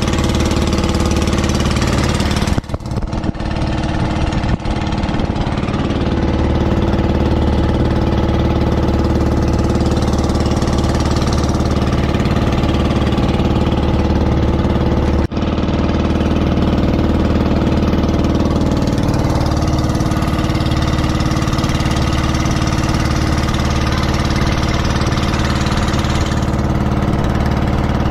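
A bangka outrigger boat's engine running steadily with an even, low throb.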